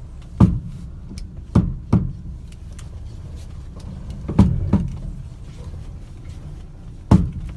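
Chevrolet Cruze electric power steering rack clunking as the steering wheel is turned to the end of its travel: six loud knocks, some in quick pairs, over a steady low hum. The knocking comes from a fault in the electric steering box.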